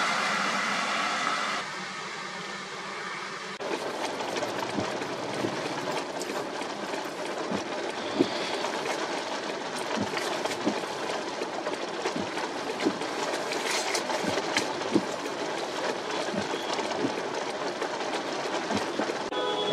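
Heavy rain beating on a car's windshield and roof, heard from inside the car, with many sharp taps of drops on the glass over a steady rush. It opens with a brief steady hum lasting a second or two.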